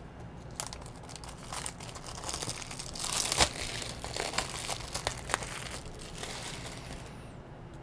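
Packaging crinkling and tearing as it is handled and pulled off, with a run of sharp crackles and clicks, the loudest about three and a half seconds in.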